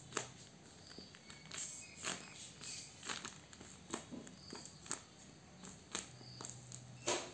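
Paper and tape crinkling in scattered short rustles as a handmade paper squishy is handled.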